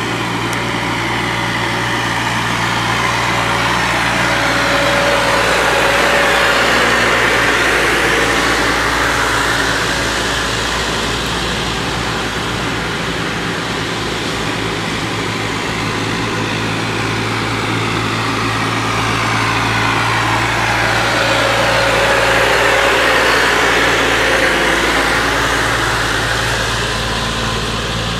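Farm tractor diesel engines running steadily during silage hauling, growing louder and fading twice as the machinery works close by.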